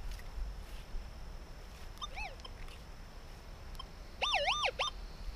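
An animal's whistled calls: two short bouts of notes that swoop up and down in pitch, the first about two seconds in and a louder one near the end.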